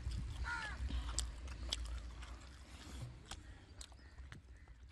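Quiet outdoor ambience: a steady low rumble with scattered faint clicks, and two brief calls, one about half a second in and one near the end.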